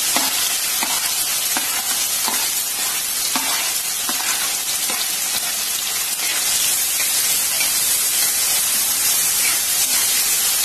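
Freshly added chopped onion sizzling in hot oil in a metal kadhai, a steady frying hiss, with a spatula scraping and knocking against the pan as it is stirred, the strokes coming mostly in the first half.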